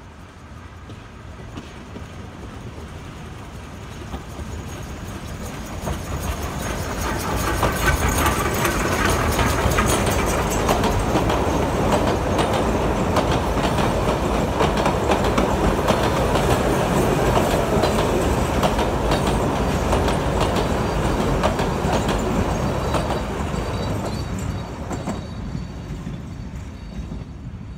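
Passenger train hauled by the 1926-built steam locomotive G42 passing close by. It grows louder as it approaches, its wheels clatter rapidly over the rail joints while the carriages go past, and it fades away near the end.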